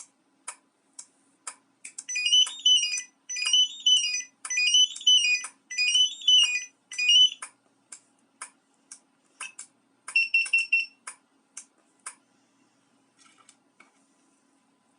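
Car alarm key fob's piezo buzzer playing short rising-and-falling melodic beep phrases, over sharp clicks about every half second. About ten seconds in comes a short run of quick beeps, then only faint ticks.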